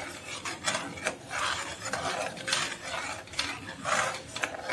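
Metal spoon stirring and scraping around a steel kadai of thick, reduced milk in quick repeated strokes, about two or three a second, to dissolve the added sugar.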